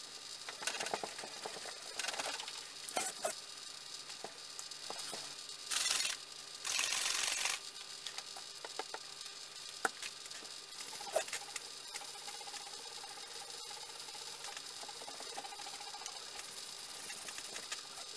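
Steel wool and cloth rubbing on a polished steel axe head, in scattered scratchy strokes. There are two short, loud bursts of hiss about six and seven seconds in.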